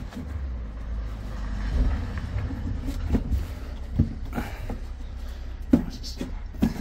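Scattered knocks and clicks of the Mercedes Sprinter's plastic front bumper and its clips being worked loose at the wheel arch by hand, over a low rumble.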